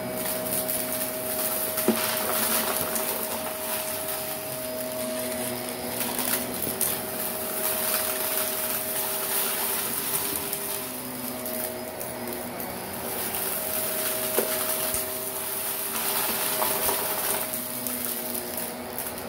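Shark Navigator upright vacuum running with its brush roll on carpet, sucking up fine dirt and grit with a crunchy crackle over its steady motor hum. The noise rises and falls in waves as it is worked back and forth, with a couple of sharp clicks as larger bits are pulled in.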